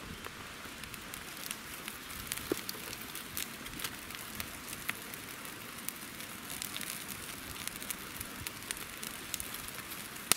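Young wood campfire of dry sticks crackling, with sharp pops scattered irregularly over an even hiss. The pops come thicker about two-thirds of the way in, and there is one loud snap right at the end.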